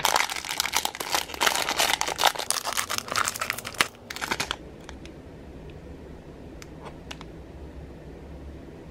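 Clear plastic bag crinkling as it is handled and opened, a dense crackling for about four seconds, followed by a few faint clicks.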